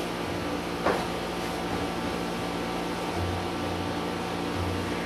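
Steady mechanical hum, with one brief knock about a second in.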